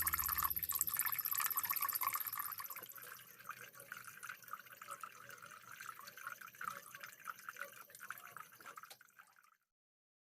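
Water trickling and dripping in a small homemade plastic-bottle waterfall fountain, a steady patter of small splashes. It gets quieter after about three seconds and cuts off suddenly near the end.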